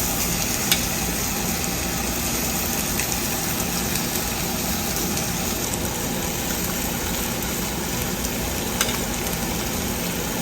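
Food sizzling steadily as it cooks, with a low hum underneath and a couple of light clicks.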